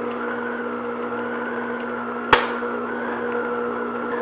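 Electric stand mixer running on low speed, its flat beater working flour into cake batter in a glass bowl: a steady motor hum with a wavering whine above it. A single sharp clack about two seconds in.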